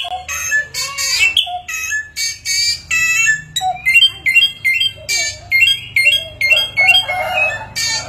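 Samyong songbird singing a fast, varied mimicking song of whistles and chattering notes; from about halfway it repeats a short rising note about three times a second.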